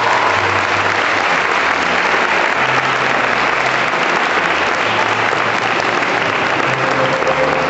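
Audience applauding, a steady dense clapping that goes on throughout.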